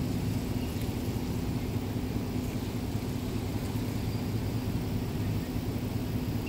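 Road traffic: cars and a pickup truck passing one after another, with a steady low hum.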